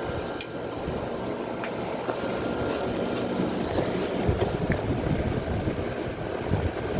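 Gibson 5000 BTU window air conditioner running on high fan: a steady rush of air from the fan over the hum of the running compressor, growing gradually louder over the first few seconds, with a few light ticks.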